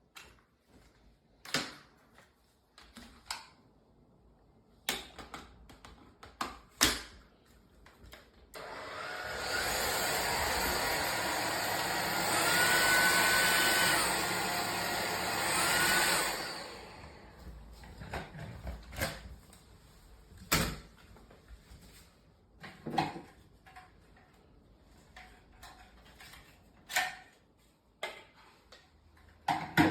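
Powerffy N10 cordless stick vacuum motor switched on and running with a steady whine for about eight seconds, louder for a stretch in the middle, then switched off. Clicks and knocks from handling the vacuum come before and after.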